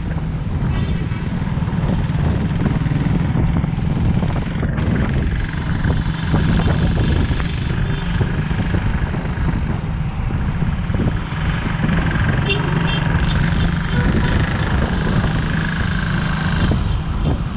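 Motorcycle engine running steadily while the bike rides at speed, heard from on the bike, with cars and vans passing close alongside.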